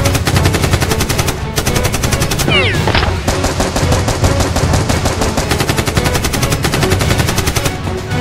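Automatic-gunfire sound effects dubbed over toy-blaster action: rapid machine-gun bursts that break off briefly about one and a half seconds in, then carry on. A short falling whine sounds about three seconds in.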